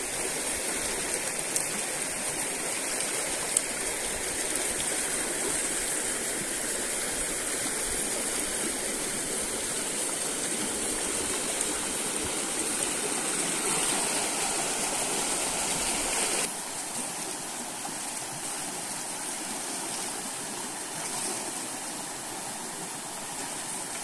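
Water of a shallow, rocky stream running steadily. Two light taps sound in the first few seconds, and about two-thirds of the way through the sound drops suddenly quieter, then carries on.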